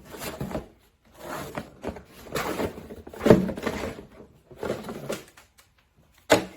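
Packaging of a hair dryer box being handled and opened: irregular bursts of rustling and scraping, with sharp knocks about three seconds in and again near the end.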